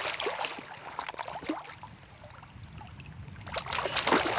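A hooked Atlantic salmon thrashing and splashing in shallow water as it is drawn to the bank, in irregular bursts of splashing that ease off in the middle and pick up again, louder, near the end.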